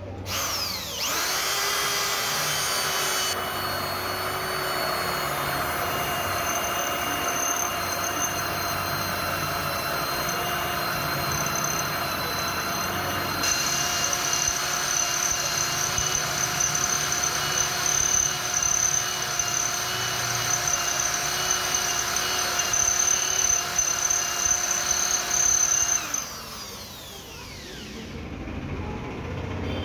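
Planet Power EID-700 RV 13 mm electric drill starting with a rising whine and running steadily under load as a large bit bores through thick iron. About four seconds before the end it is switched off and spins down.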